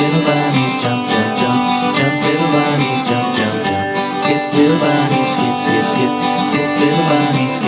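Background music for a children's nursery-rhyme song, with a steady strummed beat.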